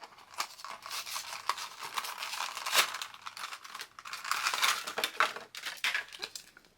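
Toy packaging being opened by hand: continuous crinkling and tearing with many small clicks and rustles.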